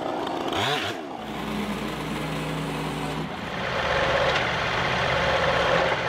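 Gas chainsaw revving briefly about half a second in, then an engine idling steadily; a little past three seconds in, a louder, rougher engine noise takes over.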